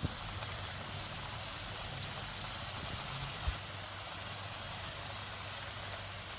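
Hot oil sizzling steadily in a frying pan as battered chicken-and-potato bites fry in it, with a brief low thump about three and a half seconds in.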